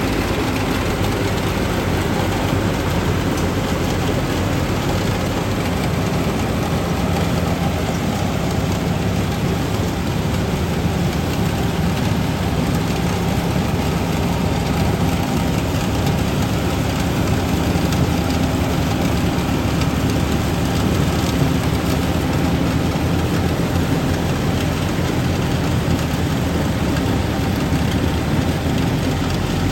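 Yanmar 850 combine harvester running steadily as it cuts rice, its engine and machinery giving a constant low drone.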